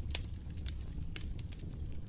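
Wood fire crackling in a fireplace: scattered sharp pops and snaps over a low steady rumble, with two louder pops, one just after the start and one just past a second in.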